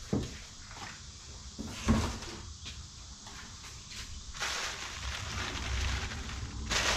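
Packaging being handled: a couple of dull knocks as the cardboard shipping box is shoved aside, then about four seconds in a plastic bubble-wrap bag crinkling as it is picked up and opened.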